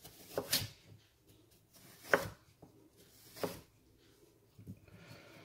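A kitchen knife slices through raw pumpkin and knocks on a wooden cutting board: three clear cuts about one and a half seconds apart, with a fainter one near the end.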